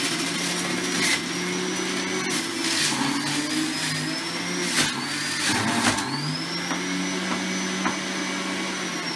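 Electric centrifugal juicer running as apples, a lemon and mint leaves are pushed down its feed chute and shredded. There is a steady motor hum with a high whine, both sagging in pitch under the load and climbing back about six seconds in, and a few knocks along the way.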